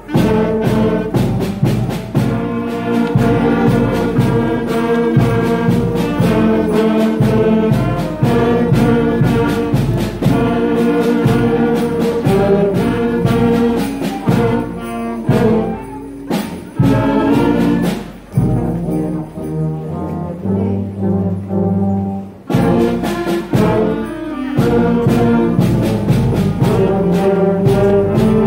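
A student concert band playing: saxophones, trumpets and low brass together. About two-thirds through, the band drops to a few low held notes, then the full band comes back in suddenly.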